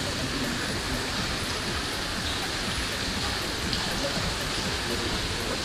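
Steady patter of falling water splashing.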